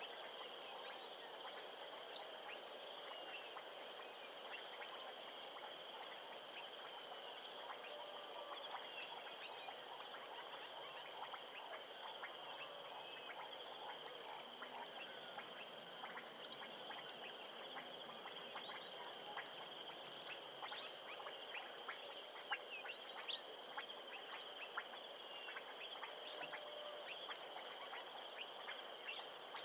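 Chorus of insects and frogs: a high chirp pulsing evenly throughout over a steady high drone, with many scattered short clicks.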